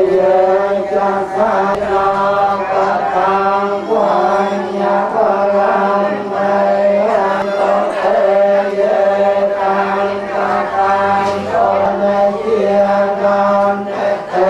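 Buddhist monks chanting together in unison, a steady continuous recitation held around one pitch.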